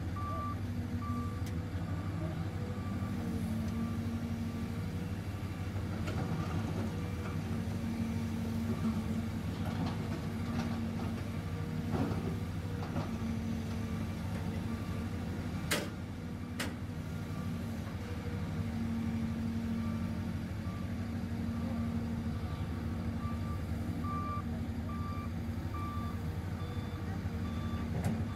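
CAT 320C hydraulic excavator's diesel engine running steadily as the machine digs and swings, its pitch rising and falling with the hydraulic load. A warning alarm beeps at a steady pace near the start and again near the end, and two sharp knocks come about halfway through.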